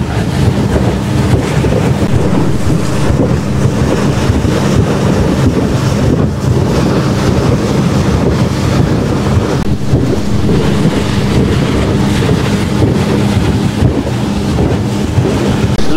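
Outboard motor of a small open boat running steadily at speed over choppy sea, with heavy wind buffeting the microphone and water rushing past the hull.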